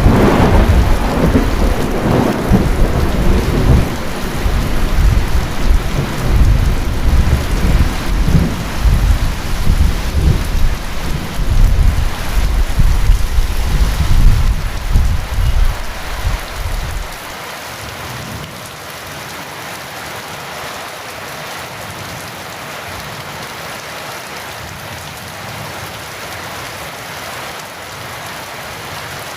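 Heavy rain falling steadily, with a long rolling rumble of thunder underneath that cuts off abruptly a little over halfway through, leaving only the rain.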